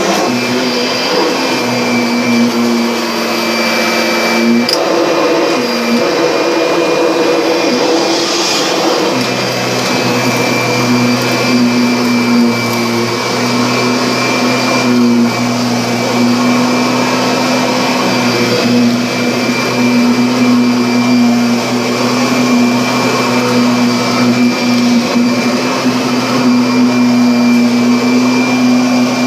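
Vacuum cleaner running with a steady motor hum and airflow noise. Its tone falters briefly about five seconds in, and the hum settles stronger after about nine seconds.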